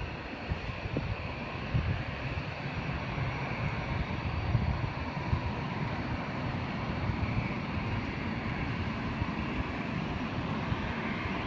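Jet airliner on its landing approach, the engine noise of a passing aircraft building slowly as a steady rumble and hiss.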